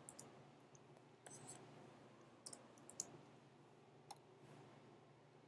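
Near silence with a handful of faint, scattered clicks and taps from computer input while working in a drawing program, over a low steady room hum.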